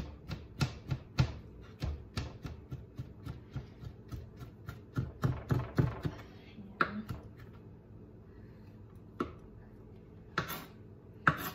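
Chef's knife chopping ham on a plastic cutting board: a quick run of sharp knocks, about three or four a second, for roughly six seconds, then a few scattered knocks. The ham is being minced finer.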